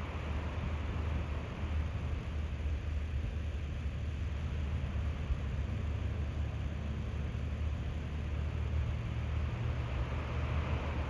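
Atlantic surf on calm seas: small waves breaking and washing up the beach, a steady low rumble under a hiss that swells at the start and again near the end.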